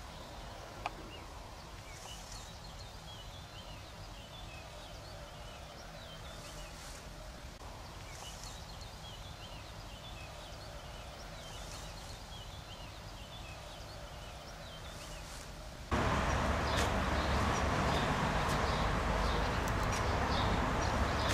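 Birds chirping, many short twittering notes over a faint low outdoor rumble, with a single click about a second in. About 16 s in, the sound cuts abruptly to a much louder steady rushing noise, strongest in the low end, with the chirping faintly above it.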